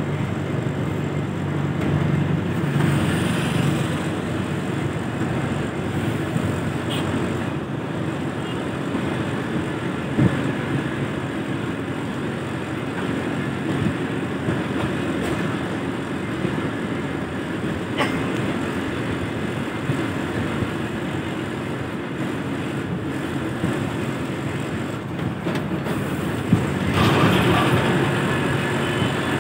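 Steady engine and road noise of a moving bus, heard from inside through its open side. It gets louder and brighter near the end.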